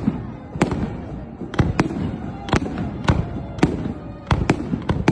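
Fireworks salute: an irregular series of sharp bangs from bursting shells, about two a second, each trailed by a rumbling echo.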